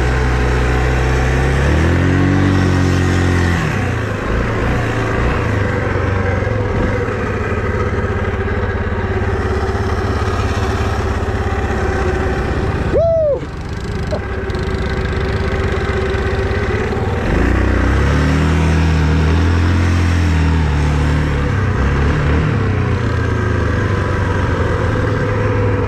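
Small single-cylinder ATV engine running under way while being ridden through snow, revving up and easing back about two seconds in and again past the middle, holding a steady drone in between.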